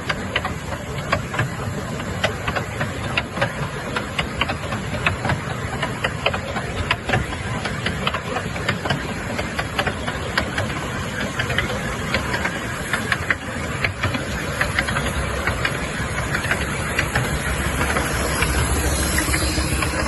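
Miniature steam engines running: a steady hiss of steam with many irregular clicks and knocks. A low rumble grows louder near the end.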